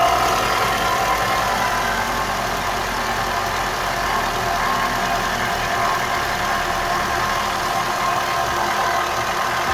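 Toyota 3S-FE four-cylinder engine idling steadily with a rapid knock, the sign of axial play in the exhaust camshaft.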